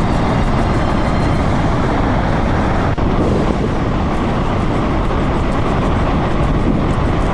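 Fast-flowing muddy floodwater rushing: a loud, steady noise with a deep rumble.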